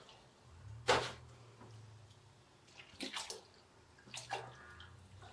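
Milk pouring from a plastic gallon jug into a cast iron skillet of browned sausage and flour, with a wooden spoon stirring it. A sharp knock comes about a second in.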